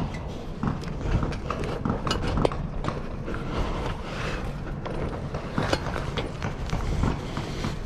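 Hands and boots knocking and scraping on the rungs of a rusty steel ladder while climbing down it, in irregular knocks and clicks over a low steady rumble.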